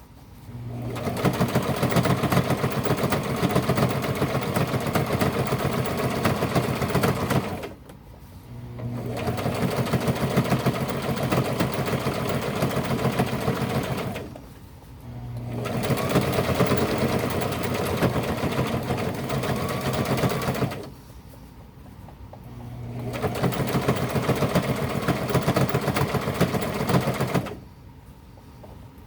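Sewing machine stitching a hem through folded denim jeans, running at a fast, even needle rhythm. It sews in four spells of about six seconds each, stopping briefly between them.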